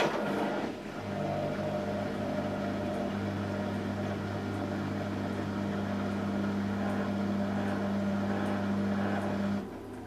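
Panasonic NA-168VG2 front-loading washing machine's drum motor starting suddenly and running with a steady, even hum, then stopping about nine and a half seconds in. This is one of the machine's attempts to go into its final spin, which it is struggling to make.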